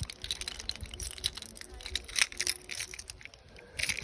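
Irregular clicks, knocks and light metallic clinks, with some low rumble; no engine running.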